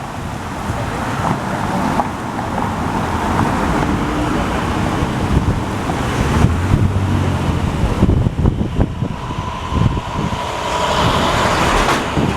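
Gusty wind buffeting the microphone over passing road traffic, with a motor vehicle's engine heard going by in the middle.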